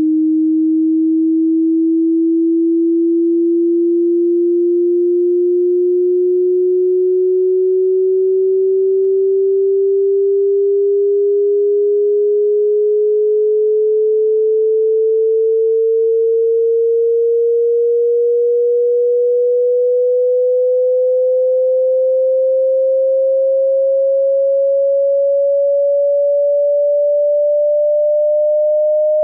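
Pure sine test tone of a hearing-test frequency sweep, a single clean tone rising slowly and evenly in pitch from a low hum to a somewhat higher one, at a steady level.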